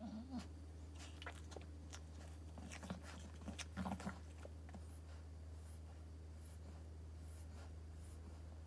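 A Boston Terrier in labour giving a few short, low grunts, one just at the start and a cluster around three to four seconds in, among small clicking mouth sounds that thin out after about five seconds. A steady low hum runs underneath.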